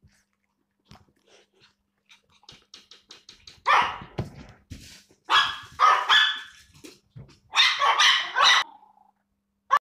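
Small dogs barking excitedly in play: a few faint clicks first, then three clusters of sharp, loud barks, and one last short bark at the very end.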